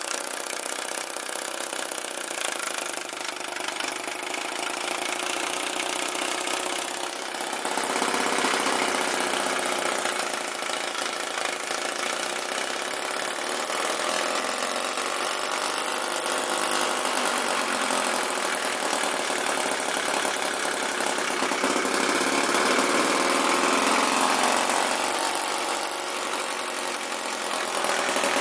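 Homemade internal combustion engine running steadily under load, driving a generator.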